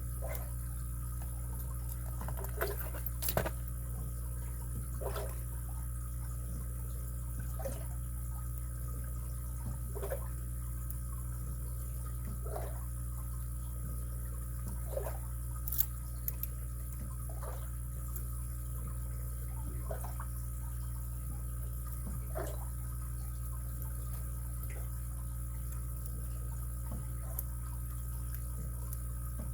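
Steady low background hum with faint, small metallic clicks every two to three seconds, from lock picks working inside a padlock.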